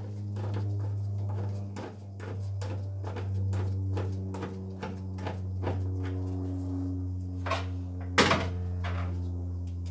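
Hand rivet-nut (nutsert) tool being worked on a car's steel floor pan: a quick run of metallic clicks for the first several seconds, over a steady low hum. Then a few sharper knocks and one loud metal clank about eight seconds in.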